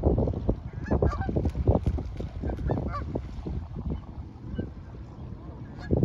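A flock of Canada geese honking: many short calls overlapping for the first three seconds, then thinning out to scattered honks, with one loud honk near the end, over a low rumble.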